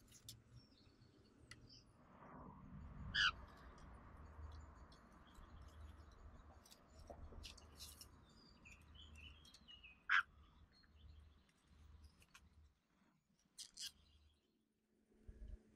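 Eurasian jays calling at the nest: a few short, sharp, harsh calls, loudest about three seconds in and about ten seconds in, with two more near the end, over soft rustling and faint scattered chirps.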